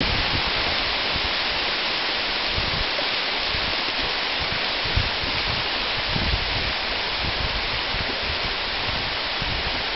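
Steady rushing hiss of rain falling on the trees and the wet towpath, with a few low bumps now and then.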